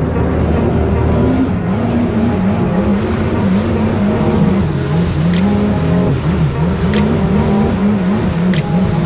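Jet ski's 1500 cc engine running under way, its pitch wavering up and down as the throttle changes, with water spray hissing off the hull.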